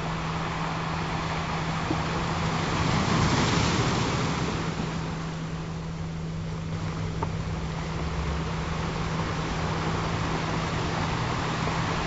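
Ocean waves washing in a steady hiss, one surge building to a peak about three to four seconds in and ebbing away, over a steady low tone held throughout.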